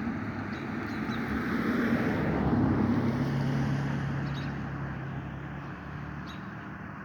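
A motor vehicle passing by: its noise swells to a peak a few seconds in, with a low engine hum, then fades away. Faint bird chirps sound in the background.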